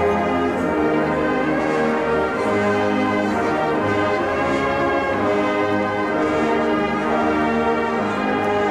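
Military brass band playing slow, sustained chords over low bass notes that change every second or two.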